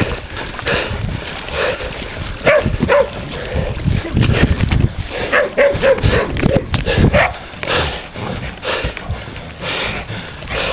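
Hunting dogs tackling a wild pig: short dog calls and whimpers over scuffling, with low thuds that are heaviest between about four and seven seconds in.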